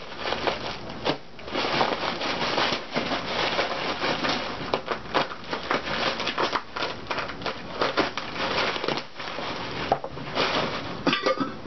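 Packaging being handled and unwrapped, with continuous dense crinkling and crackling made up of many small sharp crackles.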